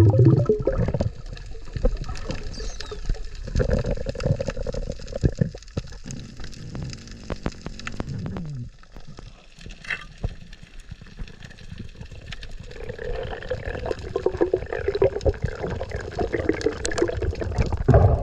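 Underwater sound around a diver's camera: water sloshing and gurgling with bubbles, which comes and goes, over a constant fast crackle of clicks.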